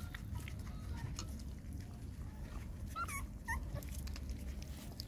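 Nursing puppies whimpering: a few short, high, wavering squeaks about three seconds in, with fainter ones earlier, over a low steady rumble.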